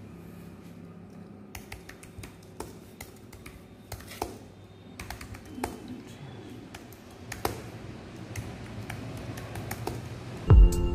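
Irregular clicking of typing on a computer keyboard, over a faint steady hum, with a louder low thump near the end.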